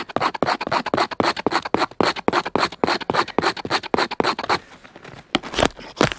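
A knife blade scraping birch bark into fine tinder, a quick run of scratchy strokes about six a second. Shortly before the end the strokes stop, and three or four harder scrapes of a ferro rod throw sparks onto the bark.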